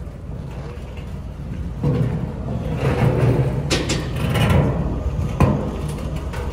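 Steel drums being rolled and tipped on their rims across asphalt, with a few sharp metallic knocks, over a steady low engine rumble.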